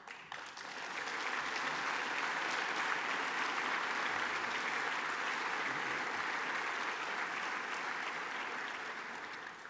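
Audience applauding in a large hall: a steady round of clapping that builds over the first second, holds, and dies away near the end.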